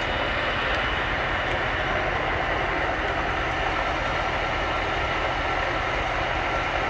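Homemade goose-foot rolling machine running: a steady mechanical drone with a faint whine, unchanging in level.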